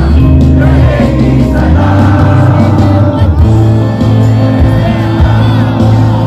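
Loud live band music with singing and a crowd singing along, heard through the venue's PA with heavy bass.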